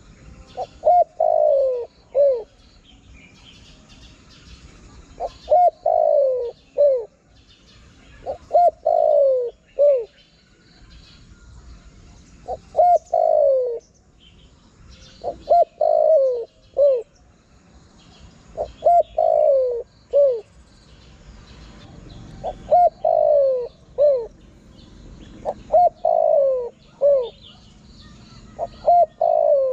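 Spotted dove singing its cooing song: a phrase of a few short coos and one longer falling coo, repeated about every three to four seconds, some nine times. This is the call used to lure wild spotted doves.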